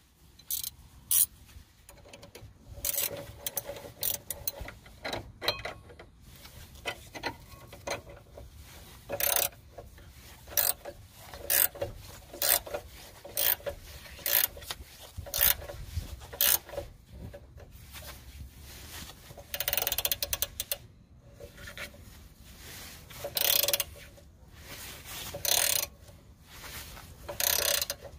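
Ratcheting spanner clicking in short repeated bursts as it turns the forcing screw of a ball joint separator clamped on a suspension ball joint.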